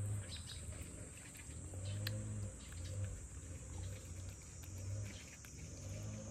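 A cat growling: a run of long, low growls with short breaks between them.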